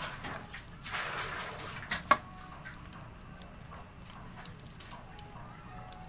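Metal spatula stirring chicken pieces in a pan of liquid: wet squishing and scraping in the first two seconds, with a sharp clack of the spatula against the pan about two seconds in, then a quieter steady simmer.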